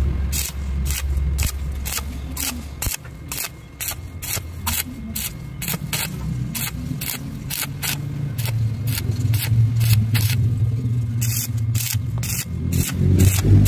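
Stick-welding arc crackling in short, evenly spaced spurts, about three a second, as the flux-coated electrode is flicked on and off the weld puddle on steel, over a low hum.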